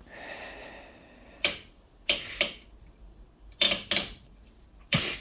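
Sharp mechanical clicks from an oscilloscope's front-panel switches and knobs being turned, about six in all, some in quick pairs.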